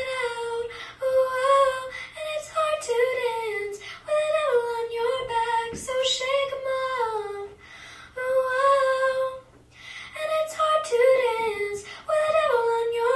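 A girl's solo singing voice through a microphone, phrase after phrase with brief pauses between the lines.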